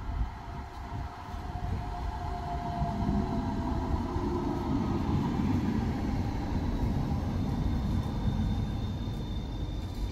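A London Trams tram approaching and running in alongside the platform, slowing down. A whine falls slightly in pitch over the first couple of seconds. The running rumble of the wheels on the rails grows loudest as the tram comes past, and a faint thin high whine or squeal sets in near the end.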